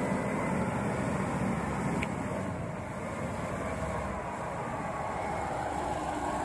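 Diesel engine of a Mitsubishi Fuso heavy truck running steadily, ready to take up the tow of a crashed truck.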